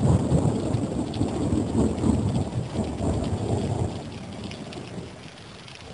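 Thunder rumbling over steady rain, the rumble dying away about four seconds in.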